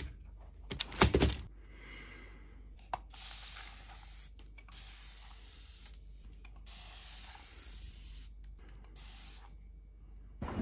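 Aerosol spray can hissing in about five short bursts, each around a second long, aimed at a pair of sneakers laid on newspaper. A couple of sharp knocks from handling the shoes come in the first second or so and are the loudest sounds.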